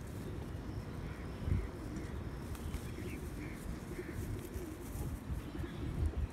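Domestic pigeons cooing, a run of soft low coos, over dull rumble and a couple of thumps from the phone being handled.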